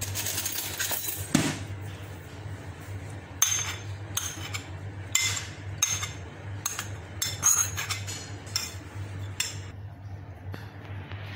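A metal spoon scraping and clinking against a bowl as a thick topping is scraped out of it: about a dozen short, irregular taps and scrapes over a low steady hum.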